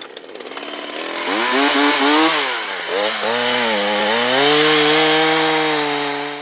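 Ryobi two-stroke gas chainsaw starting up and revving, its pitch dipping a few times before it is held at high revs as the bar goes into a fallen tree log, then easing off near the end.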